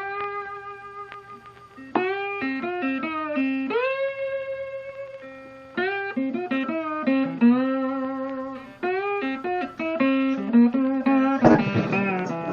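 Background music: a guitar playing a slow melody of single plucked notes, several bent or slid up into pitch, turning to busier strummed playing near the end.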